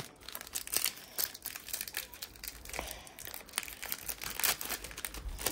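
Plastic trading-card pack wrapper crinkling and tearing as it is torn open by hand, in a run of irregular crackles.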